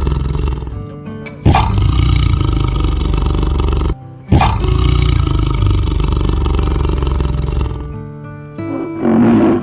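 Tiger roaring: two long, deep roars, each starting abruptly, about three seconds apart, over background music, with a shorter pitched sound near the end.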